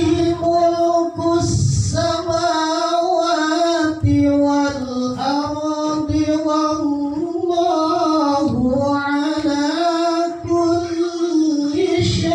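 A male qari chanting Quranic verses in the melodic tilawah style, holding long notes that waver and slide in pitch, with short breaks for breath between phrases. His voice is hoarse and strained, which the title puts down to a cough.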